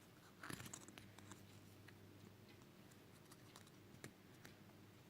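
Faint scattered clicks and small pops from slime being squeezed and poked, a short cluster about half a second in and single clicks later, over a low steady hum.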